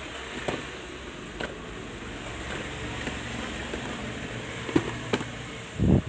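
Cardboard box being handled on a plastic stool: a few short taps and knocks over steady background noise, with a heavier thump near the end.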